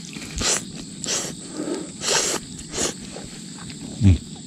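A person slurping pasta noodles off chopsticks: four or five short, noisy sucks spread over the few seconds, with a short low hum near the end.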